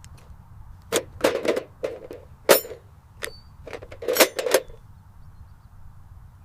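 An irregular series of about a dozen sharp knocks, several in quick pairs, over a low steady hum.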